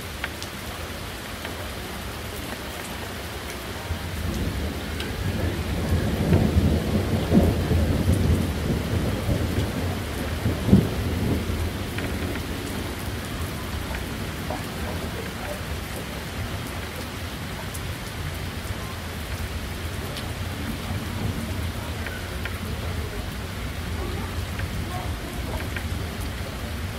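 Rain sound effect: steady rain with a low rolling rumble of thunder that swells about four seconds in, peaks for several seconds, and fades back to the rain alone by about twelve seconds in.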